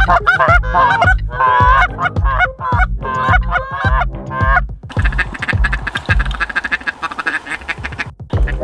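Hunter blowing a Canada goose call: a fast run of honks and clucks for about the first four and a half seconds, then the calling gives way to a denser, steadier sound. A low, steady beat of background music runs underneath.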